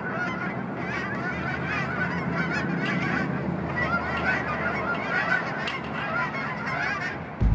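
A flock of geese honking in flight, many short calls overlapping without a break.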